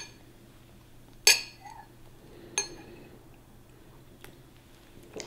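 Stemmed wine glasses clinking together in a toast: a few sharp clinks, each ringing briefly. The loudest comes about a second and a quarter in, and there are fainter taps near the end.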